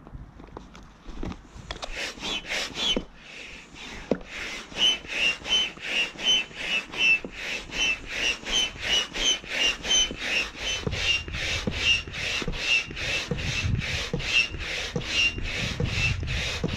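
Duotone hand pump inflating a wingfoil wing's bladder in quick, even strokes, each stroke a hiss of air with a brief whistle. The pumping starts about two seconds in, after a few light clicks as the hose is fitted to the valve.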